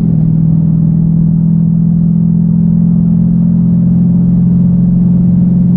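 2014 Dodge Challenger R/T's 5.7-litre Hemi V8 running through straight pipes (catalytic converters only, no muffler or resonator), heard from inside the cabin on the move: a loud, steady exhaust drone whose pitch holds level.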